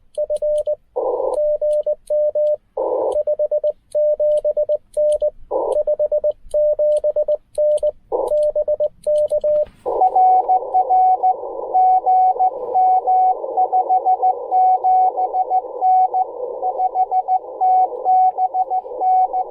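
Morse code on a Ten-Tec Argonaut V transceiver. For about the first ten seconds a steady sidetone is keyed on and off, with faint clicks of the key; then a hiss of band noise opens up and another station comes back in Morse code at a slightly higher pitch.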